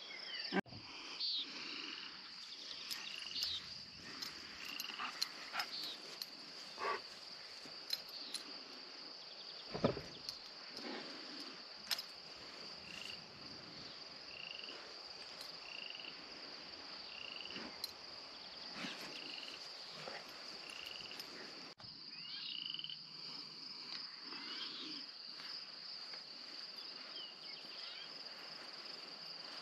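Evening outdoor ambience of insects, likely crickets, trilling steadily in a high band, with a short call repeating about once a second and a few scattered clicks.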